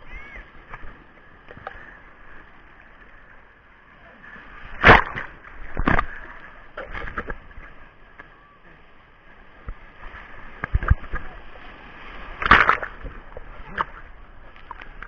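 Sea surf: waves washing and splashing, with a few loud splashes standing out, the loudest about five seconds in and again about twelve and a half seconds in.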